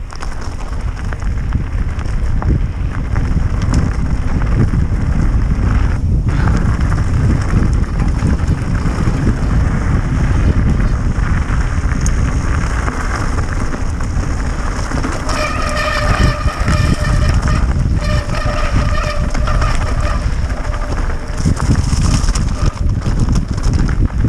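Mountain bike rattling over a loose gravel track at speed, under a loud rumble of wind on the microphone. A steady high squeal sounds for a few seconds past the middle.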